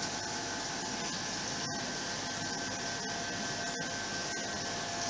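Steady whirring hiss with a few faint held hums, from the aquarium's running filter and air pumps.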